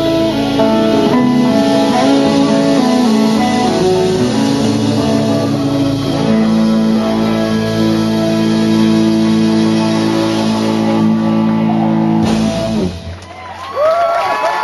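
Blues band music with guitar, ending on a long held chord that stops about two seconds before the end. Crowd cheering and whoops begin right at the end.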